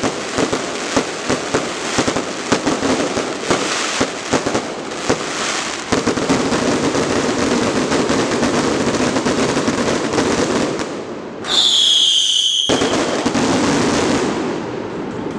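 Aerial fireworks display: rapid, dense bangs and crackling, merging into a continuous crackle after about six seconds. About twelve seconds in, a loud high whistle sounds for about a second.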